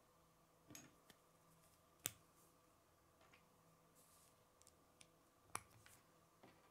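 Plastic K'nex rods and connectors snapping together by hand: a few sharp, short clicks, the loudest about two seconds and five and a half seconds in, with fainter handling ticks between.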